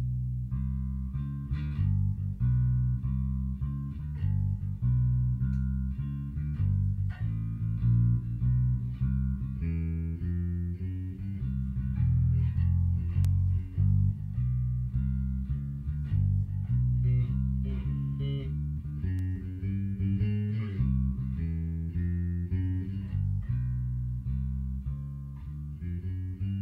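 Sadowsky electric bass played through a Little Walter PB60 60-watt tube bass head into a single ported 2x10 cabinet: a continuous bass line of plucked notes with a deep, full low end.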